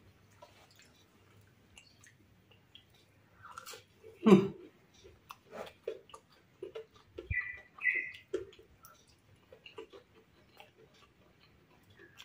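Close-up chewing and crunching of crispy fried tahu bakso, with irregular bites and mouth clicks and one louder crunch about four seconds in.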